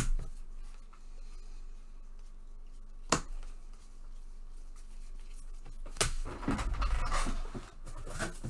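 Two sharp clicks about three seconds apart. Then, from about six seconds in, the crinkle and rustle of a 2020 Bowman baseball card pack wrapper being handled.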